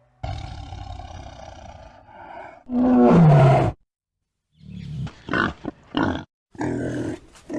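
Animal calls: a drawn-out pitched call, then a loud roar-like call that falls in pitch, then after a short pause a series of short grunts.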